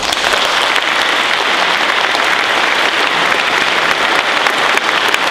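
Audience applauding: dense, steady clapping from a full hall.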